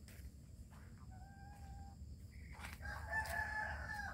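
Rooster crowing: a faint call about a second in, then a longer, louder crow in the second half.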